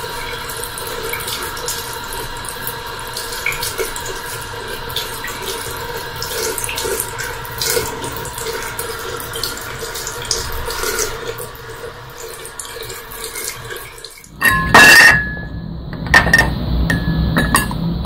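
Water sloshing with small splashes in a plastic basin holding a kitten, over a steady background hum. After about 14 seconds the sound breaks off, followed by a loud sudden burst and a few sharp knocks.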